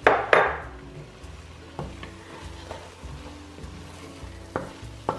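Wooden spatula stirring flour into sautéed vegetables in an enameled Dutch oven, starting a roux, with a faint sizzle from the pot. Two sharp knocks come right at the start, then a few lighter knocks of the spatula against the pot.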